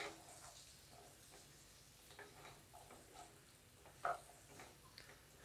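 Faint, scattered taps and scrapes of a wooden spatula stirring diced potatoes in a non-stick kadhai, with one louder knock about four seconds in.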